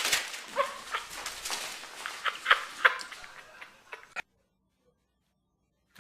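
A pet animal's short, high calls, two of them close together near the start, followed by a few sharp clicks. The sound cuts off to silence about four seconds in.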